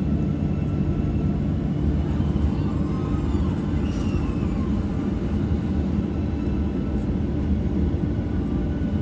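Boeing 737-800's CFM56-7B jet engines idling, heard inside the passenger cabin as a steady hum and low rumble with a few constant tones.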